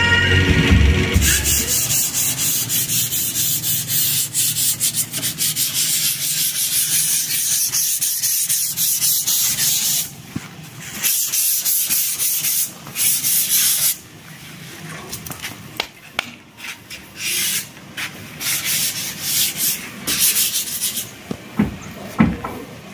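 A harsh, hissing scraping or rubbing noise. It runs steadily for about nine seconds, then comes in short bursts of one to two seconds each.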